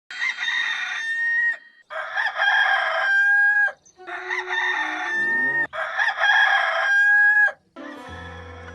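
Rooster crowing four times in a row, each crow ending in a long held note. Near the end a quieter, different steady low sound begins.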